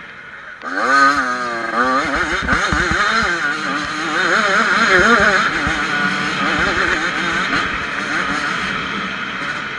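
Yamaha YZ85 two-stroke dirt bike engine under throttle on a dirt track. It is quiet for the first half second, then surges about a second in, its pitch rising and falling quickly as the rider works the throttle and gears.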